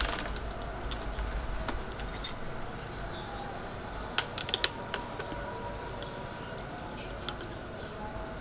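Light metal clicks and clinks as the cutting blade and die housing of a battery-powered hydraulic crimping tool are handled and fitted: one click a couple of seconds in, then a quick run of several about halfway through.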